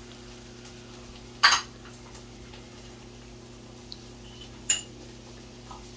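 A metal spoon clinks sharply twice against cookware, about three seconds apart, over the steady hum of a range hood fan.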